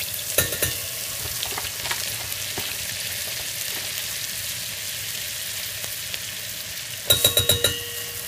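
Melted sunflower spread sizzling in a hot steel saucepan as flour goes in for a roux, a steady hiss on heat set too high. A metal spoon taps the pan about half a second in, and near the end comes a quick run of ringing metallic clinks.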